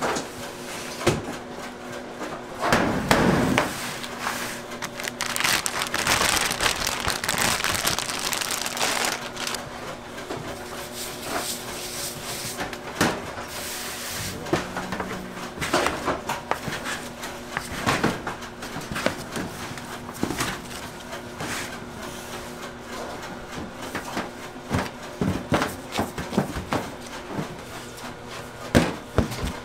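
Bakery work sounds: metal trays handled on a steel rack and large slabs of dough lifted and laid on a stainless steel table, with scattered knocks and clatters over a steady machine hum.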